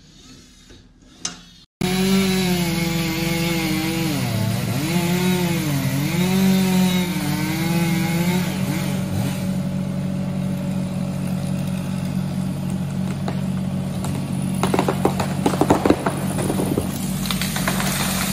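After a quiet first two seconds, a chainsaw revs and bogs down under load as it cuts into a tree trunk, over the steady running of a JCB mini excavator's diesel engine. About fifteen seconds in, the tree comes down with a burst of cracking and crashing branches.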